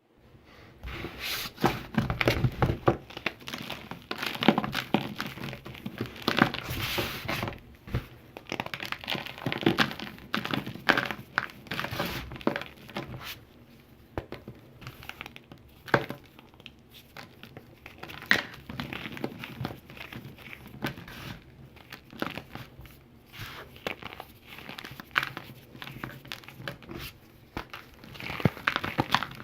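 Chunks of calcium carbonate being crushed and crumbled, in irregular runs of crisp crunching and crackling with quieter pauses and a few single sharp snaps.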